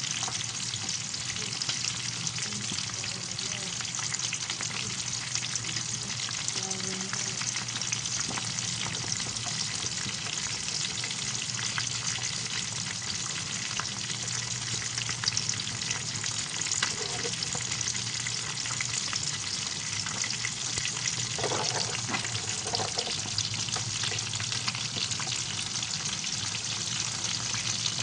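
Milkfish (bangus) frying in hot oil in a pan, a steady dense sizzle with constant fine crackling.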